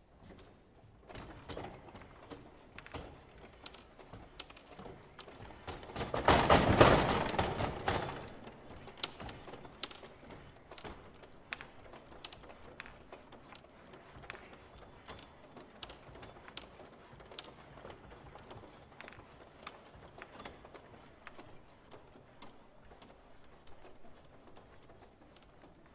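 Table-football (foosball) table being played: scattered sharp knocks and clacks of the rods, players' figures and ball, with a dense, loud rattling flurry about six to eight seconds in.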